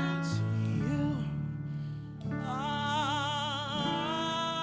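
Worship music: slow sustained chords changing every second or two, with a voice holding a long note with vibrato in the middle.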